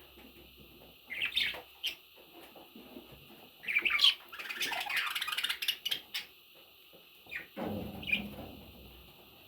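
Budgerigars calling: a few short squawks, then a burst of rapid chirping chatter, and a lower rustling sound with one more call near the end.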